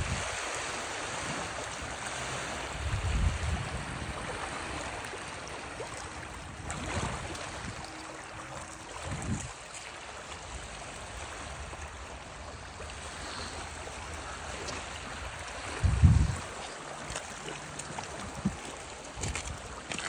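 Running water of a stream, a steady rushing sound, with a few short low thumps on the microphone.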